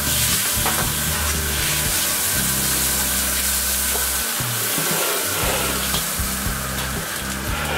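Water sizzling and hissing into steam in a very hot carbon-steel wok as the wok is scrubbed out with a bamboo brush between dishes. Background music underneath.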